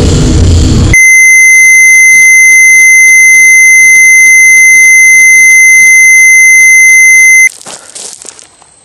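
A second of loud, harsh static, then a loud, steady, high-pitched electronic beep that holds one pitch for about six seconds. The beep cuts off suddenly, leaving faint rustling. It is a glitch effect of distorted noise and a test-tone-like beep.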